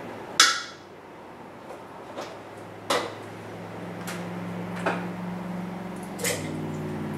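Metal tongs clinking against glass canning jars and a glass dish as chunks of cooked beef are lifted into the jars: four sharp clinks, the first the loudest, with fainter ticks between.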